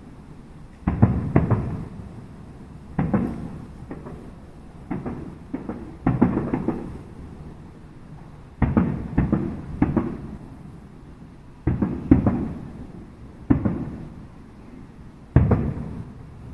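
Aerial firework shells bursting: a run of loud booms and cracks, often two or three in quick succession, coming every second or two. Each group trails off in a rumbling echo.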